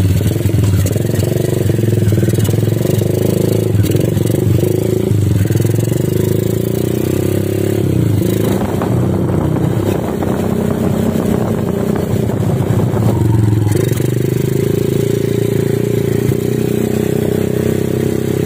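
Motorcycle engine running steadily while riding, its pitch shifting slightly a couple of times.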